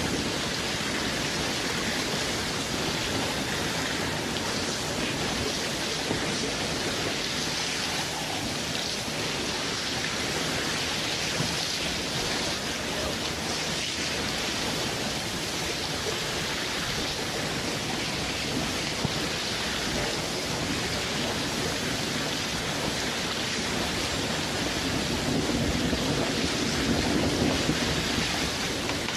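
Steady wash of water noise, like rain, that grows a little louder and deeper near the end.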